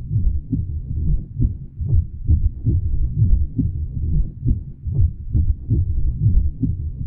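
Deep, low thudding sound effect pulsing about twice a second, like a heartbeat.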